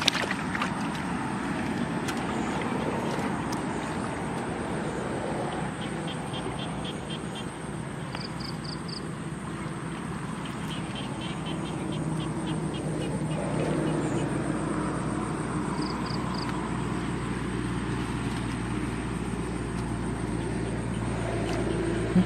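Outdoor ambience: a steady low rumbling noise, with short high-pitched chirps and rapid chirping trills, like insects or frogs, recurring every few seconds.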